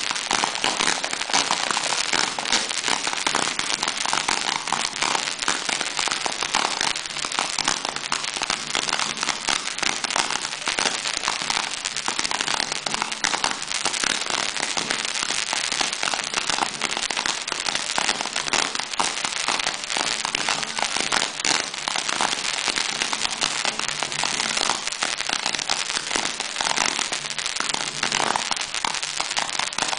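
Ground-launched fireworks barrage going off without a break: a dense, rapid run of pops and crackles from many small shells fired in quick succession.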